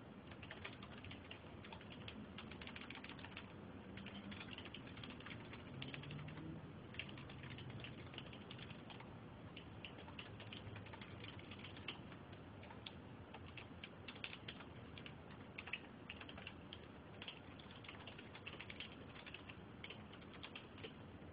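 Keystrokes on a computer keyboard: quick, irregular runs of typing clicks with short pauses between them.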